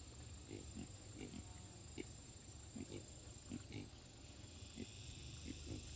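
Short, low animal grunts repeated irregularly, over a steady high-pitched whine.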